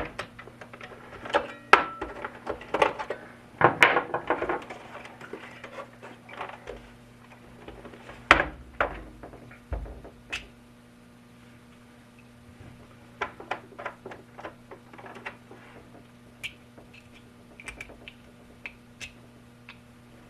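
Scattered clicks, taps and knocks of hard plastic parts and tools being handled, thicker in the first half and again in the later part, over a steady low electrical buzz in the background.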